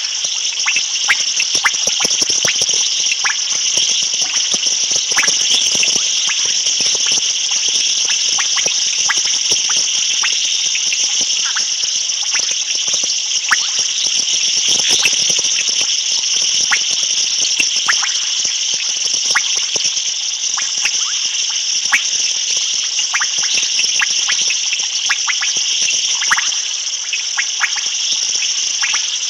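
Night chorus at a waterhole: a steady high-pitched insect trill with many short frog clicks and chirps over it.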